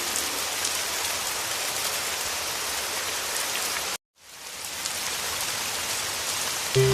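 Steady heavy rain, an even hiss of falling drops. About four seconds in it cuts off abruptly to silence for an instant, then fades back in. Soft music tones fade out at the start, and music with a low bass comes in near the end.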